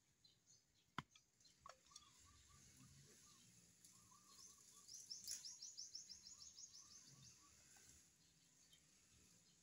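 Faint outdoor birdsong: a quiet repeated chirping throughout, and a rapid high trill about halfway through that lasts a couple of seconds. A single sharp knock about a second in, from bamboo sticks being handled.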